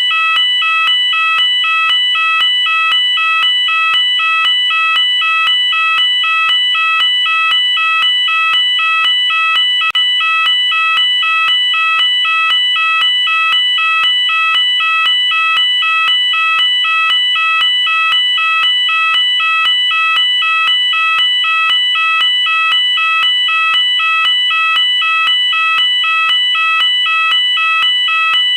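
UK electronic fire alarm sounder going off continuously, alternating evenly between two pitches in a steady, unbroken rhythm.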